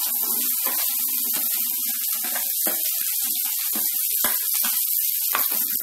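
Chopped okra sliding into a pan of hot oil and onions, sizzling steadily, with about half a dozen sharp taps and scrapes as a slotted spoon pushes the okra off a plastic plate.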